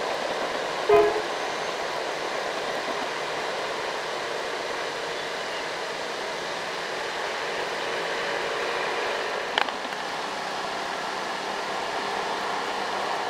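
Steady road traffic noise. A short vehicle horn toot comes about a second in, and there is a sharp click a little before ten seconds.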